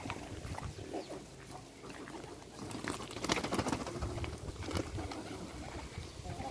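A flock of domestic pigeons cooing as they feed on grain on the ground, with scattered short taps and rustles throughout.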